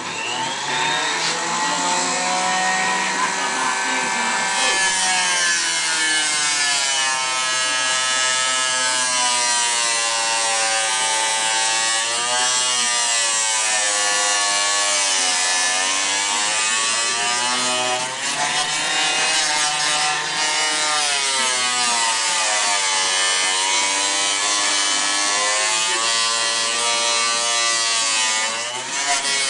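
Small 1/8 hp mini table saw (Harbor Freight 4-inch Mighty-Mite) spinning up, then running with a high motor whine whose pitch sags and recovers several times as Kydex sheet is fed slowly into the blade and loads the motor.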